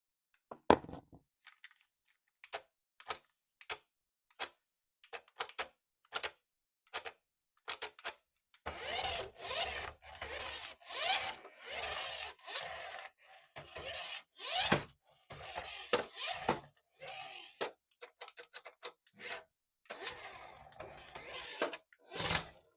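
Handling of a toy and its packaging: scattered sharp clicks and taps, then from about nine seconds in a run of dense rustling and scraping.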